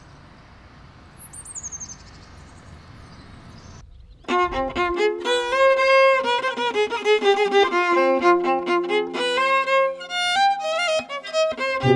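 Faint outdoor ambience with a short run of falling bird chirps, then about four seconds in, music starts: a violin melody over string accompaniment.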